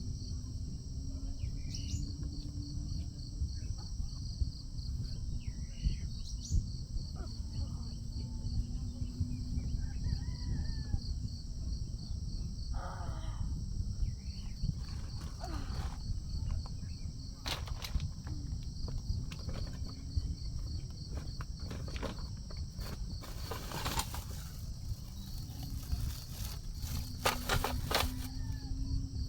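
Outdoor morning ambience: insects chirping in a rapid, even pulsing trill that stops and starts, over a steady low rumble. Scattered sharp clicks and rustles are heard, most of them in the second half.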